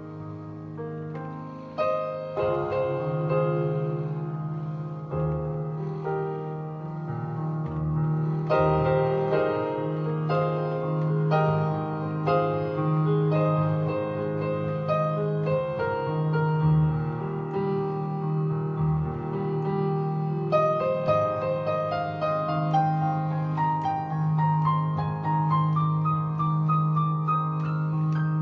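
Improvised electronic keyboard music in a piano-like voice, over a low bass note held throughout. In the last third, a line of notes climbs steadily in pitch.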